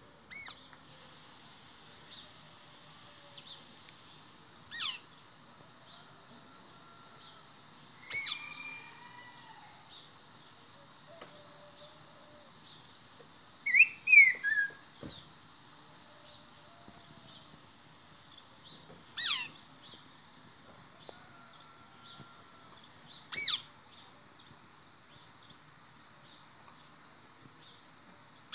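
Black-throated grosbeak (bico-de-pimenta, Saltator fuliginosus) calling. It gives five sharp, steeply falling whistles several seconds apart, with a short run of falling notes about halfway through.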